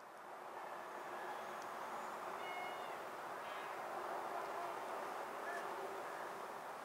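Faint steady outdoor background noise with a few short bird chirps, including a quick trill about halfway through.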